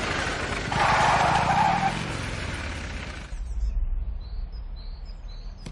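Motorcycle engine noise as the bike pulls up, loudest in the first three seconds. It then drops to a low idling rumble, with a few bird chirps near the end.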